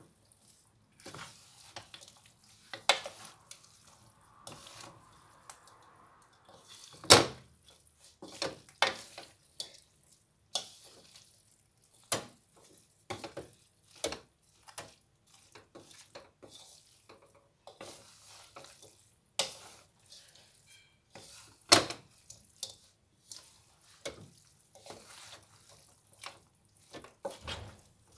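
Wooden spatula and spoon tossing noodles in a metal wok: irregular knocks and scrapes of wood against the pan. Two knocks, about seven seconds in and about twenty-two seconds in, are louder than the rest.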